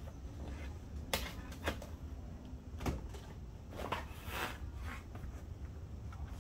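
Cardboard boxes being handled on a table: a few sharp knocks as they are set down and picked up, and a scraping rustle of cardboard a little after the middle.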